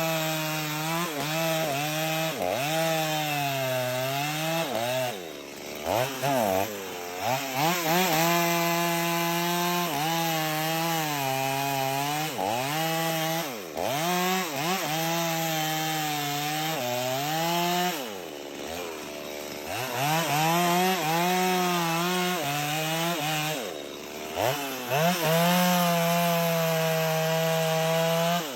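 Gasoline chainsaw running under load as it cuts through wood. The engine pitch wavers as the chain bites, and about four times it falls away sharply to a lower note before revving back up.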